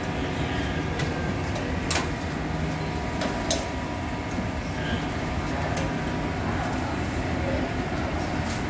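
Ring donuts deep-frying in a commercial fryer: a steady sizzle of hot oil over a low hum, with a few sharp clicks as metal tongs knock against the wire frying basket.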